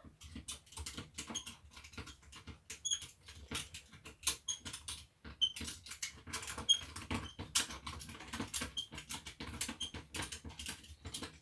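A screwdriver driving the final screw into the plastic housing of a Bosch PSR cordless drill: a run of small irregular clicks and scratches, several a second, with a few faint short squeaks.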